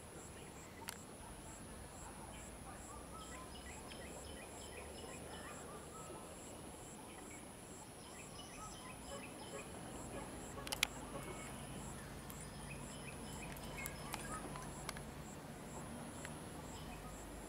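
Outdoor insect and bird ambience: a steady high insect whine with a regular ticking about two or three times a second, and bursts of short bird chirps. A few sharp clicks break through, the loudest about eleven seconds in, and a low rumble comes in about ten seconds in.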